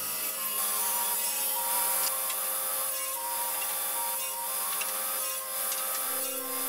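Sliding table saw of a Felder Hammer C3-31 combination machine running and cutting wood into strips and segments, a steady high hiss.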